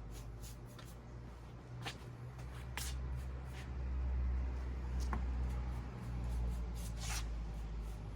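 A handful of short scratchy strokes from paint being worked onto the prop by hand, the one near 7 seconds in the longest. Under them runs a low rumble that swells in the middle.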